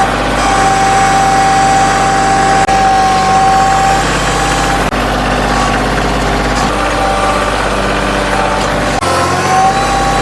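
Heavy machinery engine running steadily, with a steady high whine over it for the first few seconds.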